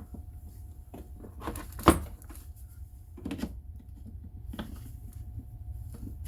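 Plastic handling knocks and one sharp click about two seconds in: a battery pack being slid onto a cordless impact wrench and latching into place.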